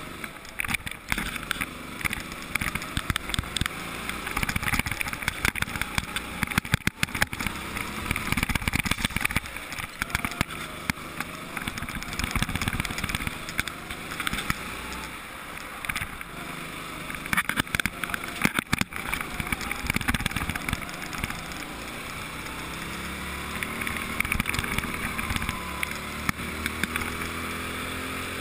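Go-kart engine running at speed, recorded onboard, with frequent knocks and rattles from the chassis; near the end the engine note rises and falls with the throttle.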